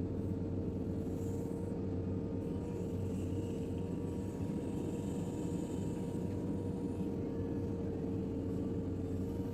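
JCB 3DX backhoe loader's diesel engine running steadily, a low hum with a steady whine over it.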